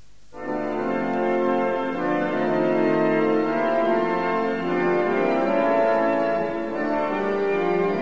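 Instrumental music with sustained, held keyboard chords that shift slowly, coming in suddenly about a third of a second in after faint hiss.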